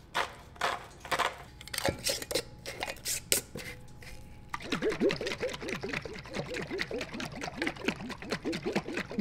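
Homemade salad dressing being mixed in its container: a few light clicks and taps, then, about four and a half seconds in, a fast rhythmic sloshing of the liquid, several strokes a second.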